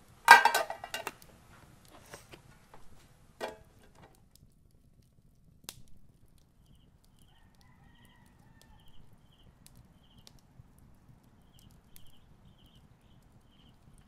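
A metal lid clatters and scrapes onto a metal tin about half a second in, with a second smaller knock a few seconds later. Later, faint distant rooster crowing and small bird chirps.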